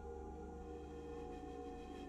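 Slow ambient background music of long held tones that shift gradually.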